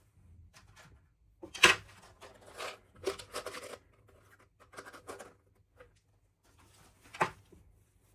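Hands handling small objects and packaging: a sharp tap or click about one and a half seconds in, then rustling and scraping, and another sharp tap near the end.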